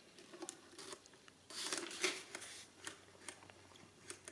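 Faint clicks and paper rustling from a hand handling the paper tape and roller of a Precisa 364 adding machine's printer; the machine's motor is not running.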